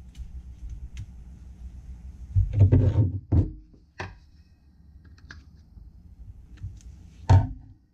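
Knocks and thuds of a vacuum pump being handled as its oil is drained: a cluster of loud knocks about two and a half seconds in, a sharp click about four seconds in, and one heavy thud near the end.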